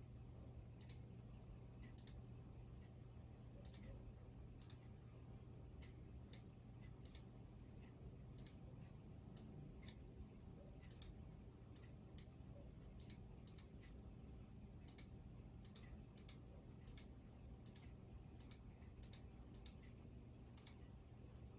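Faint, irregular clicking of a computer mouse, about one or two clicks a second, over a low steady hum.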